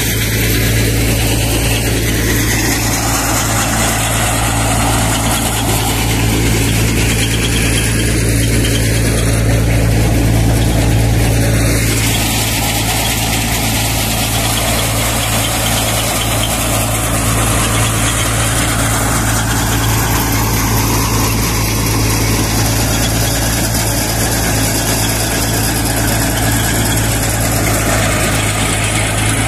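Soybean threshing machine driven by a tractor, running steadily with a constant low engine hum and the noise of the threshing drum.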